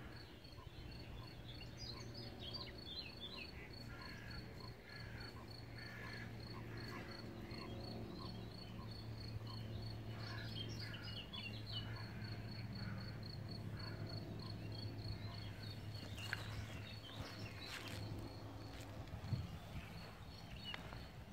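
A cricket chirping in a steady, even rhythm, with birds calling now and then over a low steady hum. Near the end come a few footsteps on a gravel path.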